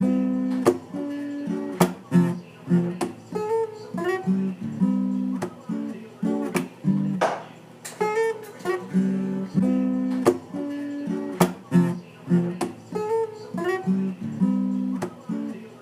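Intro music: acoustic guitar picking and strumming a short phrase that repeats.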